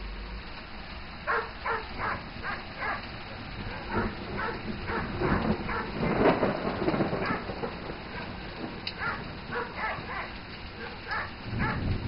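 A dog barking in bouts of short barks, about three a second.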